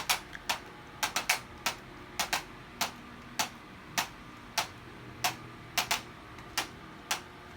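Sharp clicks about twice a second, uneven in spacing, some coming in quick pairs or threes.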